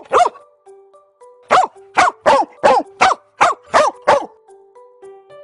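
Dog barking: one bark, then after a pause a quick run of eight barks, about three a second, each falling in pitch. Behind them plays soft background music of held notes.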